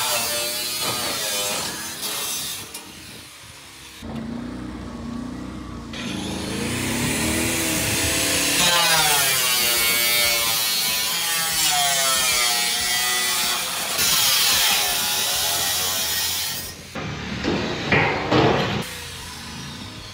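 Angle grinder cutting corrugated sheet-metal siding, its whine wavering in pitch as the wheel bites, with a short lull a few seconds in. The cutting stops near the end and a few sharp knocks follow.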